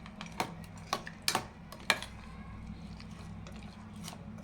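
A metal spoon stirring chopped fruit into thick custard, clinking sharply against the dish several times, mostly in the first two seconds.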